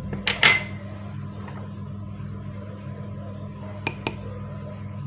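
A drinking glass clinking against a glass mixing bowl as ingredients are tipped in: two sharp ringing clinks about half a second in and two lighter ones near four seconds. A steady low hum runs underneath.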